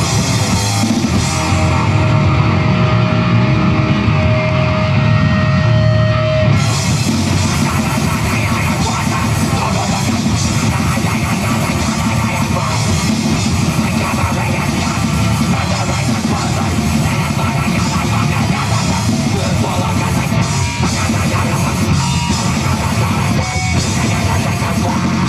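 Hardcore punk band playing a song live, with distorted electric guitars, bass and drum kit, loud and continuous. A single held note rings over the opening few seconds, and the full band comes in about six seconds in.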